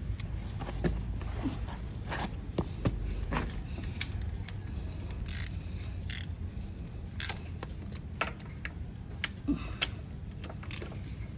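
A wrench clicking and clinking irregularly as the 17 mm oil drain plug of a Kawasaki Vulcan S650 is loosened.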